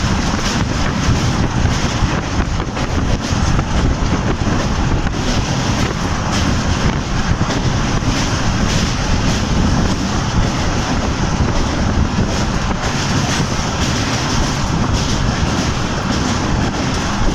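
Train running on rails: a steady loud rumble with a faint, irregular clatter of wheels over the track.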